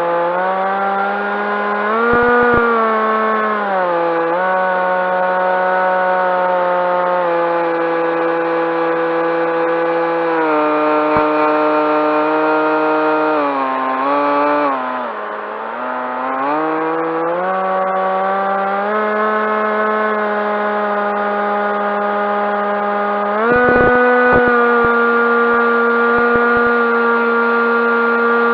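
Electric motor and propeller of a Skywalker FPV plane droning in flight, the pitch following the throttle: it rises briefly about two seconds in, sags low around the middle as the throttle eases off, then steps up and holds higher near the end. A few brief low thumps come over it.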